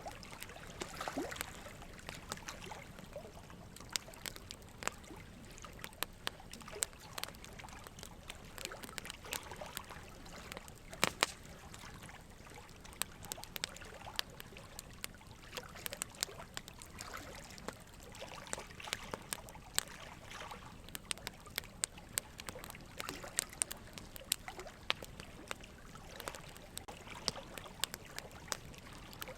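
Quiet ambient soundscape: many irregular soft crackles and small clicks over a faint steady hiss.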